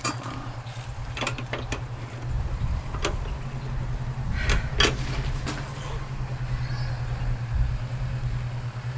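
Scattered sharp clanks and knocks of tire-changing tools being handled at the wheel, the loudest two close together a little before five seconds in, over a steady low hum.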